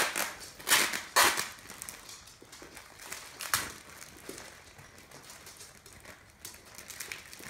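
Packaging crinkling and rustling as clothes are handled and pulled out of a subscription box. There are a few sharp, loud crinkles in the first second and a half and another about three and a half seconds in, with softer rustling between them.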